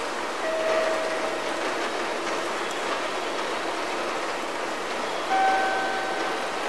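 Two-note descending station PA chime over steady station hiss. A low note sounds just after the start, closing one chime, and a higher note near the end begins the next.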